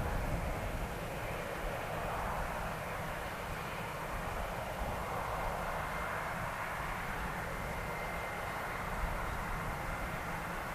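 Boeing 767-300 airliner's jet engines running at approach power as it passes low over the runway to land: a steady roaring rush with a low rumble, and a faint high whine coming in about halfway through.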